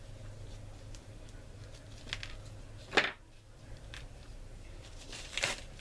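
Small handling noises of gloved fingers picking up and setting down tiny resin propeller blades on a cutting mat: faint scrapes and clicks with a sharp tap about three seconds in, over a low steady hum.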